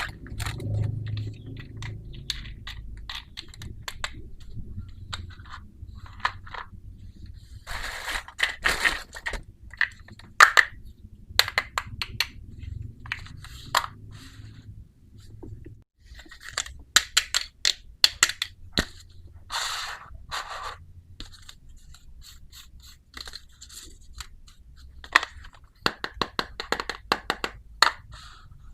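Small plastic miniature toy kitchen pieces and their packaging being handled: irregular sharp clicks, taps and short scrapes.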